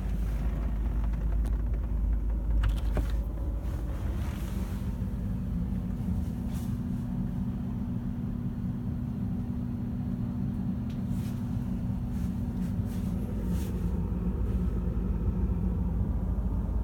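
A steady low mechanical hum and rumble, with several constant hum tones, and a few faint knocks over it.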